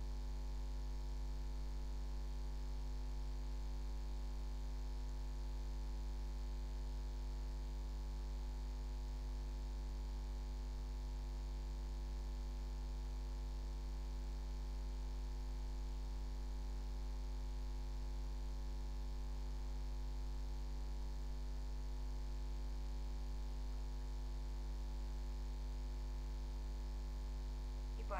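Steady low electrical mains hum with a row of fainter steady tones above it, unchanging throughout.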